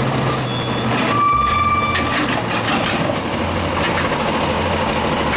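Automated side-loader garbage truck running, its engine a steady low hum under broad mechanical noise as its arm lifts a wheelie bin, with a brief high tone about a second in.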